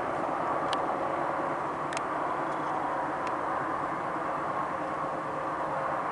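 Freight train rolling by, a steady rumble of wheels on rail with a few sharp clicks.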